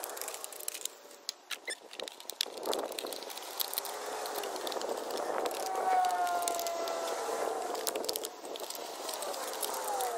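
Thin plastic bottles being handled and cut: irregular crackling and clicking of the plastic.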